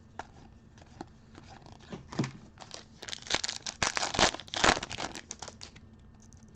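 Trading-card pack wrapper being torn open and crinkled by hand: scattered crackles, densest in the second half.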